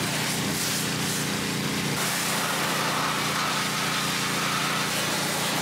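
Yokohama YKHW4500 hot-water pressure washer running at a steady pace, its small petrol engine driving the pump, with the hiss of the high-pressure spray hitting a vehicle's engine bay.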